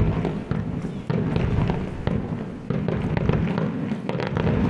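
Aerial fireworks bursting: several deep booms, with crackling strings of small sharp pops between them, the crackle densest near the end.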